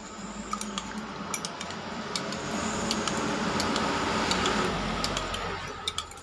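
Light clinks and ticks of kitchenware over a hissing noise that swells to its loudest midway and fades toward the end.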